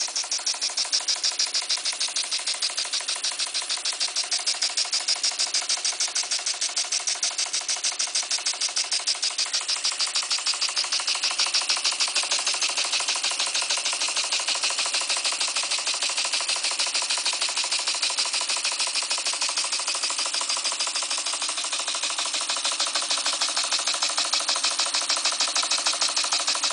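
Homemade single-cylinder model steam engine running on compressed air, its exhaust chuffing in a rapid, steady beat with a light mechanical rattle as it drives a model centrifugal water pump.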